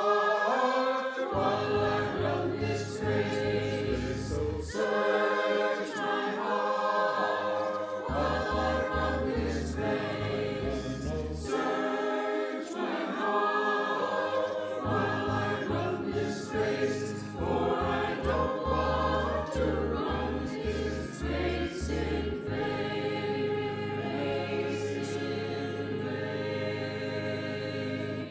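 Choral music: a choir singing over accompaniment with a low bass line of repeated notes.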